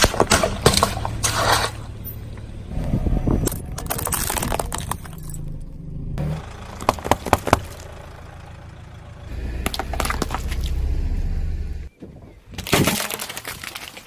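A car tyre rolling over brittle objects and crushing them, in bursts of crackling and crunching over the low hum of the car's engine. Several separate crushes follow one another, with abrupt changes between them.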